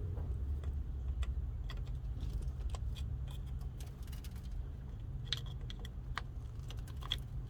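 Irregular small clicks and ticks of a screwdriver working the three-prong wiring plug off an old floor-mounted headlight dimmer switch, over a steady low hum.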